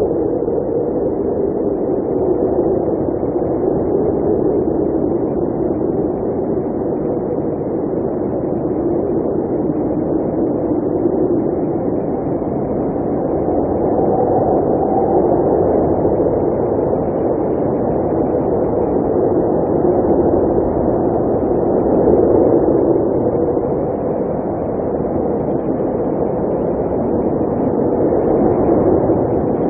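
Blizzard wind blowing: a steady, low, dull rush that swells and eases over several seconds at a time.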